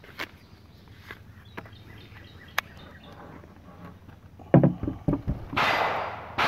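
A few faint clicks, then about four and a half seconds in a cluster of knocks as a Kel-Tec Sub 2000 carbine is handled and laid on a wooden picnic table, followed by about a second of rustling as the shooter gets up from the bench.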